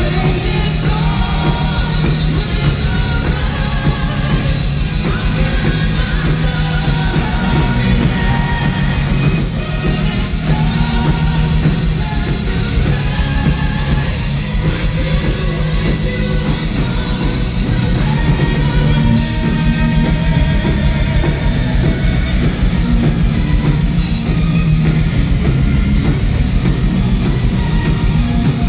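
Symphonic metal band playing live: heavy drums and bass with strings and singing, loud and continuous.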